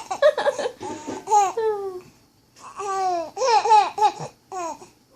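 Small child laughing in about four bursts, high-pitched, each bout falling in pitch.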